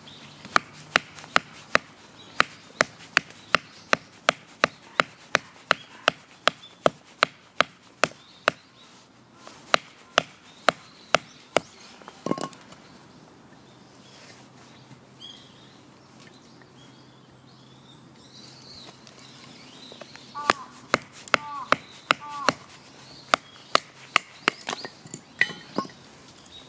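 A rapid series of sharp knocks or strikes, about two to three a second, in two runs with a pause of several seconds between them.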